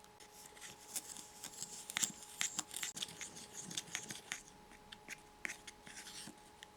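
Quick, irregular small clicks, taps and light scraping, the sound of small plastic pieces, utensils or packaging being handled, thickest in the middle and thinning out near the end.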